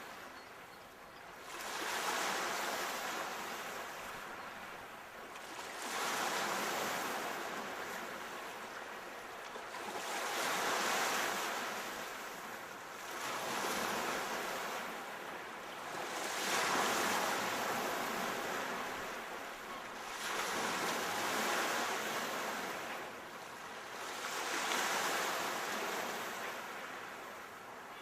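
Sea waves rolling in one after another. Each surge of rushing hiss rises and fades about every four seconds.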